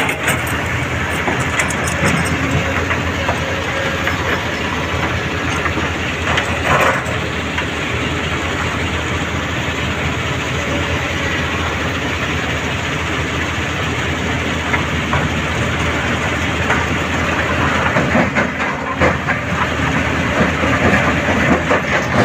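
Mobile stone crusher running, with crushed rock rattling and clattering steadily through it, and a few louder knocks about six seconds in and again near the end.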